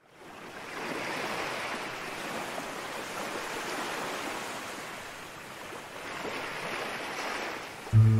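Ocean surf washing in slow swells, fading in at the start. Music with steady held notes and a strong bass note comes in suddenly near the end.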